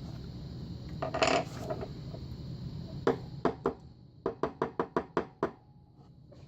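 Small metal lock parts clicking and tapping on a hard surface: a short clatter about a second in, then a run of about ten sharp taps, roughly four a second.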